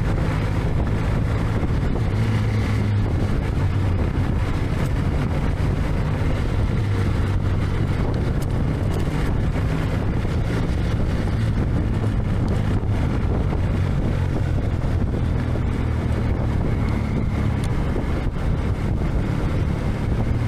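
Motorcycle engine running under way while riding, its note rising and falling slightly with the throttle, with wind noise on the microphone.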